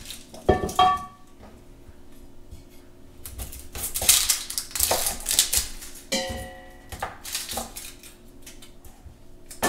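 Kitchen prep sounds: a stainless steel pot clinks twice against the counter near the start, with a short ring. Then comes a few seconds of scraping and rustling of vegetable scraps on a wooden cutting board, and another metallic ring from the pot about six seconds in.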